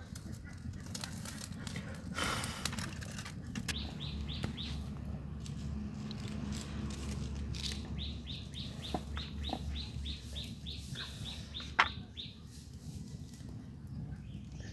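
A bird calling in quick runs of short, high, slightly falling chirps: a brief run early on, then a longer one of about four chirps a second, over a low steady background hum. A single sharp click comes near the end of the second run.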